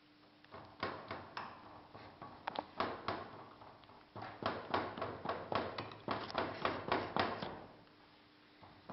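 Moulding sand being tamped into a foundry flask with a hand rammer: a quick, irregular series of sharp knocks, a few a second, in two runs with a short break about four seconds in.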